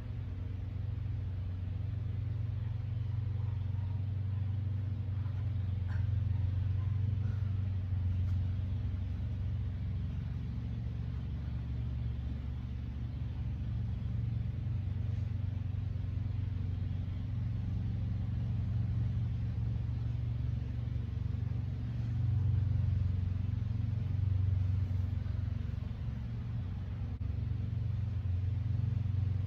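Steady low background rumble that swells and eases a little in level.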